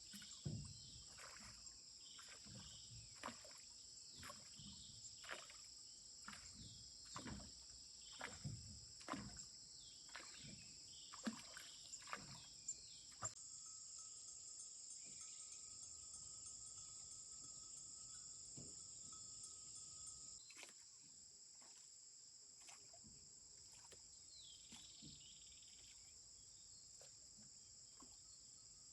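Paddle strokes in the water, about one a second, over a steady drone of insects; after about thirteen seconds the strokes stop and only the insect drone remains.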